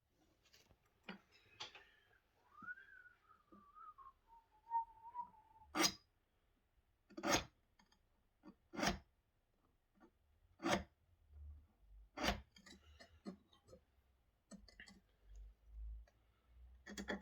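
A man whistles a short falling phrase, then a run of five sharp metallic knocks and clicks about a second and a half apart, with lighter clicks between, as tools are worked on a steel plate being marked out.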